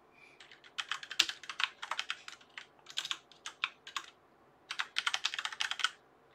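Typing on a computer keyboard: two runs of quick keystrokes, with a short pause a little past the middle.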